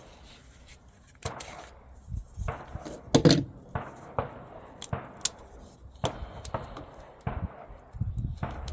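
Irregular sharp cracks and metallic clicks from a .22LR conversion-slide Glock pistol being fired and handled, the loudest about three seconds in. The pistol is jamming with failures to eject and feed.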